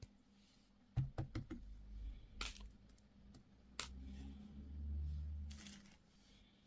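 Hands handling small plastic packaging. A quick run of sharp taps and clicks comes about a second in, then two louder single clicks, then a low rumble with a soft rustle near the end.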